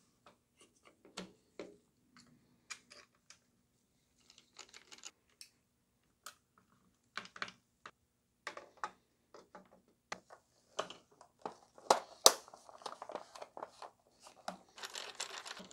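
Hard plastic parts of a gel blaster clicking and knocking as the gearbox and barrel are pressed into the plastic shell and the body halves fitted together, with two sharper, louder clicks about twelve seconds in. A short spell of rustling and scraping near the end.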